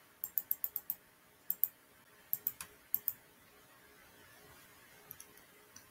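Computer mouse clicking: a quick run of about six clicks, then clicks in pairs every second or so, fainter near the end.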